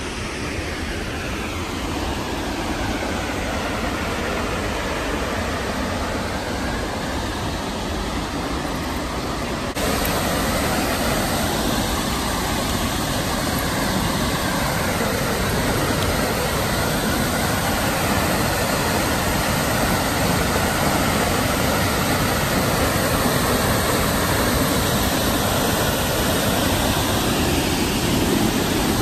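Steady rushing of a large waterfall, an even wash of falling water that jumps louder about ten seconds in and builds a little toward the end.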